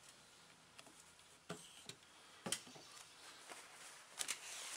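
Faint handling noises on a workbench: a few light clicks and taps, about one and a half and two and a half seconds in, and a quick cluster near the end.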